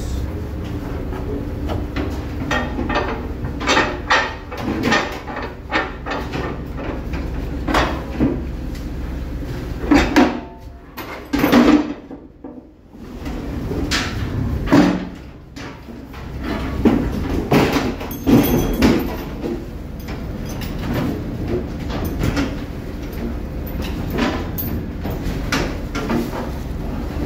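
Repeated clanks and knocks of anchor chain and longline gear on the fishing boat's metal rail and chute, over the steady low drone of the boat's engine. The sound drops briefly about twelve seconds in.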